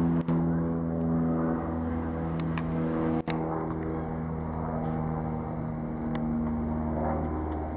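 Light propeller aircraft flying overhead: a steady engine-and-propeller drone with a strong low hum.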